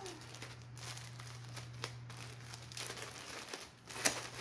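Disposable hazmat coverall and its plastic wrapping crinkling and rustling as they are pulled open and handled, over a low steady hum, with a sharp click about four seconds in.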